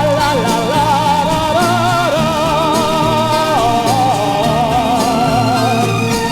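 Spanish-language romantic ballad played from a vinyl LP, in a passage without words: a melody line with wide, even vibrato carries over a steady accompaniment.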